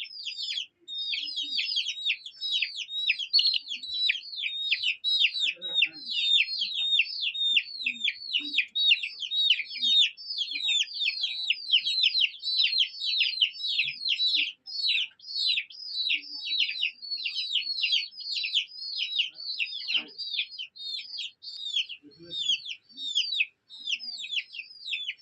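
A group of chicks peeping nonstop: many short, high, downward-sliding peeps overlapping several times a second, with a few faint low sounds underneath.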